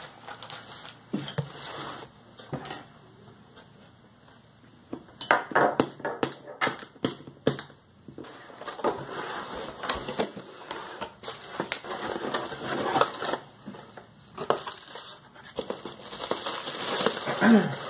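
Cardboard and plastic packaging being opened and handled: irregular rustling, crinkling and scraping, with a quick run of sharp snaps and clicks about five seconds in.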